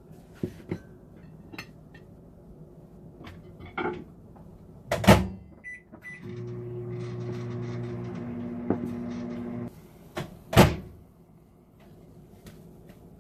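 Microwave oven in use: its door shuts with a loud clunk, two short keypad beeps, then a steady running hum for about three and a half seconds that stops abruptly, followed by another loud clunk of the door. Lighter clicks of a plate being handled come before.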